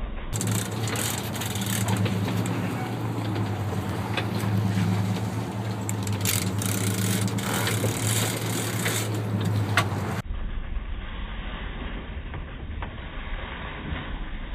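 A sportfishing boat's engine running steadily, with wind and water noise over it. About ten seconds in, the sound cuts to a quieter, duller stretch of steady engine and wind noise.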